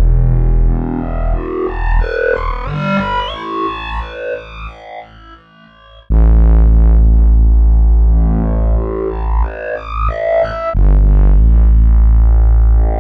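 Outersect Modeler software synthesizer playing a preset: a held bass note under a run of short melodic notes. The sound fades out about halfway through, then the bass and notes come back in suddenly at full level.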